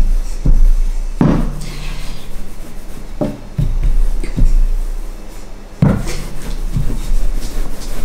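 Rolling pin rolling out pastry on a floured work surface: rubbing strokes broken by irregular knocks and thumps as the pin is pushed, lifted and set back down, the heaviest about a second in and again near six seconds.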